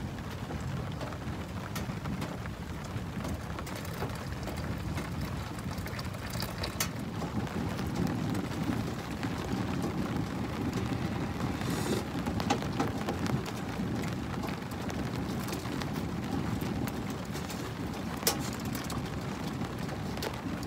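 Steady rain falling on the canvas of a lavvu tent, heard from inside as an even low patter, with a few sharp clicks over it, the loudest about eighteen seconds in.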